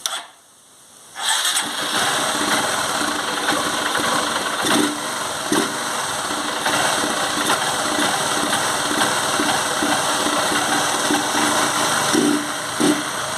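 Honda CG 150 Titan Sport's single-cylinder engine running, coming in about a second in, with a knocking noise that the owner takes for piston noise ("canecando") after the engine was run about a kilometre without oil. A few louder knocks stand out.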